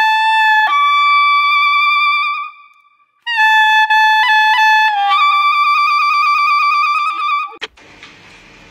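Music: a solo horn-like melody of a few long held notes, with a short break about three seconds in and some quick repeated notes in the middle. It ends with a click near the end, leaving faint noise.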